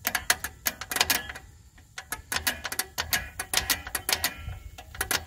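Rapid, irregular clicking of a Cadillac Fleetwood drum brake's star-wheel adjuster being turned by hand, the adjuster lever ratcheting over its teeth, with a short pause about a second and a half in. The shoes are being spread out because they have no drag on the drum yet.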